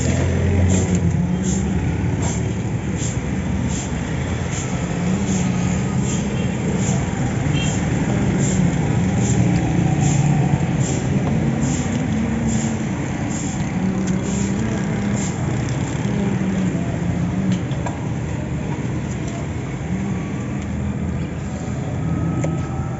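Steady low rumble of engines and road traffic. Over it, light regular clicks about every 0.8 s, a knife stroking through chicken meat onto a wooden chopping block, stop about two-thirds of the way through.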